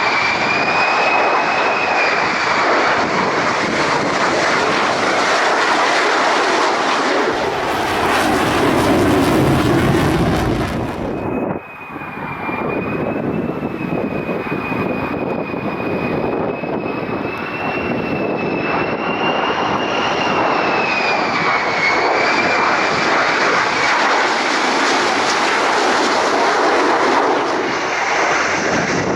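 F-35 fighter's jet engine running, with a loud continuous roar and a steady high whine that wavers slightly in pitch. About a third of the way in, a louder, harsher rush joins it for a few seconds and breaks off suddenly.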